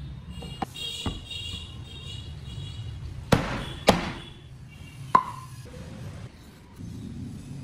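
Sharp knocks of hand-tool woodworking, such as a mallet striking a chisel into wood: a few scattered strikes, the loudest two about half a second apart in the middle, and one with a short ring a second later. Soft background music plays under them at first.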